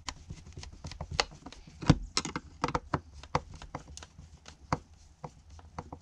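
Irregular small clicks and taps of a screwdriver working a screw into an outdoor outlet cover, with a louder knock about two seconds in.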